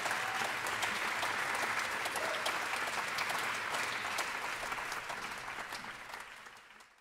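Audience applauding, a dense patter of many hands clapping, fading out near the end.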